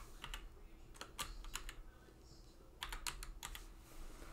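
Computer keyboard typing in three short bursts of keystrokes with brief pauses between.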